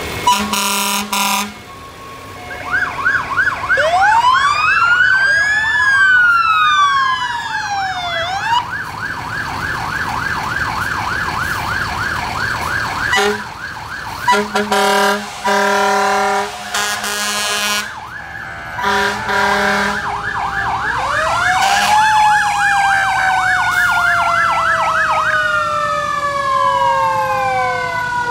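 Fire truck sirens sounding together: a fast electronic yelp runs alongside slower wails that rise and fall, overlapping one another. Several loud horn blasts break in, one near the start and a few around the middle. Near the end a wail slides slowly down in pitch.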